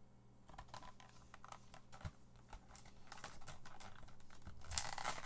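Plastic blister pack of a carded die-cast toy car crackling and clicking as it is pried open by hand. The sound gets denser and louder near the end.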